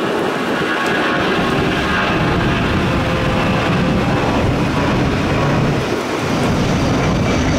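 Delta Boeing 757 jet airliner climbing out after takeoff: loud, steady jet engine noise with a faint whine in it.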